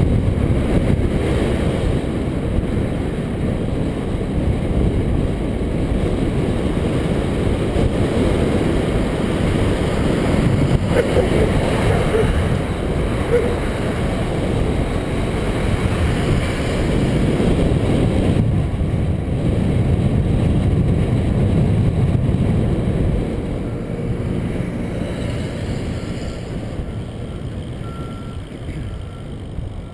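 Continuous low rumble of wind buffeting the microphone and vehicle running noise while riding along a road, easing off somewhat near the end as the vehicle slows.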